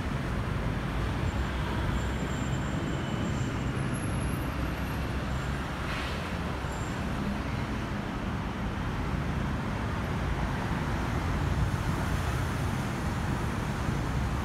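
Steady jet noise from a Boeing 737-800's CFM56 turbofan engines as the airliner flies over, an even rumbling hiss that holds at the same level throughout.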